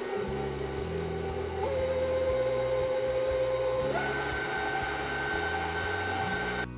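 Electric stand mixer running with its paddle beating a batter of creamed butter, sugar and eggs. The motor's steady whine steps up in pitch twice, about a second and a half in and again about four seconds in, as the speed is turned up, then cuts off near the end.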